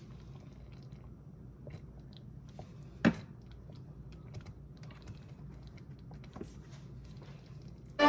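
Quiet kitchen handling noises: scattered small clicks and taps, with one sharper knock about three seconds in, over a faint low hum.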